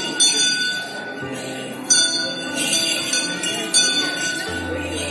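A temple elephant's neck bells jingling in repeated clusters every second or two as the elephant sways, with a ringing tone that carries between the strikes.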